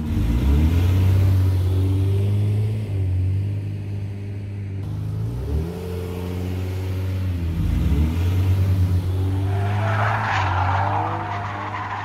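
Car engine sound effect accelerating hard, its pitch climbing and dropping back several times as it shifts up through the gears, with a burst of tyre squeal about ten seconds in.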